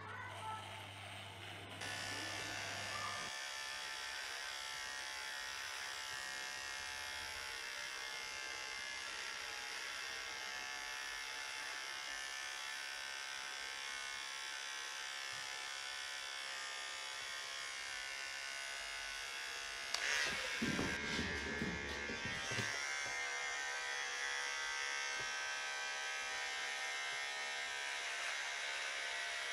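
Electric hair clippers buzzing steadily as they shave hair close to the scalp. About two-thirds of the way through, a couple of seconds of louder, uneven bumping noise rises over the buzz.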